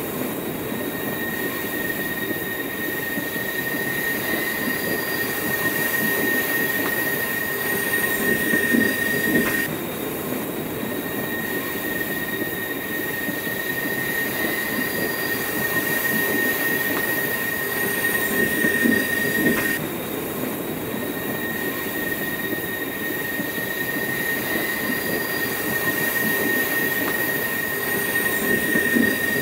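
Train rolling on the rails with a steady high-pitched wheel squeal over the noise of the cars. The same stretch of about ten seconds repeats three times, the squeal breaking off briefly each time it starts over.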